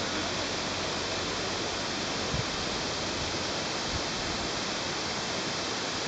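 Waterfall cascading down tiers of granite rock, a steady rushing of water, with two soft low bumps partway through.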